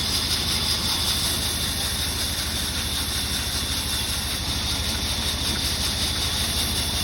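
Sawmill machinery running with a steady, unchanging drone: a low engine-like hum under an even hiss.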